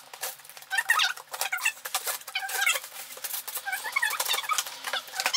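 Cardboard shipping box being handled and its packing tape pulled open, with quick crackling and tearing noises. High squeaky chirps come and go throughout.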